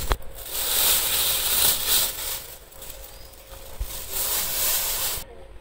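Thin polythene bag rustling as tomatoes are taken out of it, in uneven spells with a quieter stretch in the middle, cutting off suddenly near the end.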